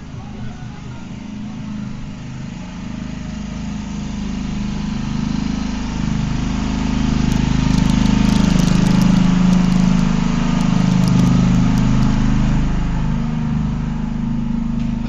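Motorcycle engine running steadily. It grows louder after a few seconds, is loudest around the middle and eases off slightly near the end.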